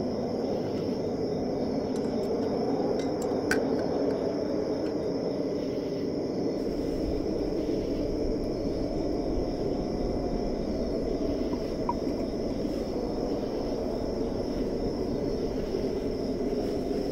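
Crickets trilling steadily over a low, steady rush of desert wind, with a few light clicks, the sharpest about three and a half seconds in.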